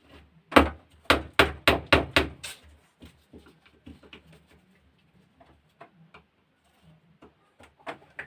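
A quick run of about seven sharp knocks, roughly three a second, then scattered lighter clicks and taps: hand work with a screwdriver on a battery sprayer pump's parts.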